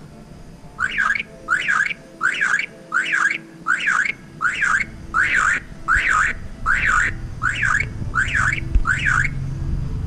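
Common myna calling: a run of about twelve evenly spaced notes, each a quick rising-and-falling sweep, about one every 0.7 s, stopping a little before the end.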